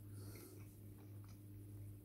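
Faint, soft chewing and mouth sounds with a few small clicks over a steady low hum.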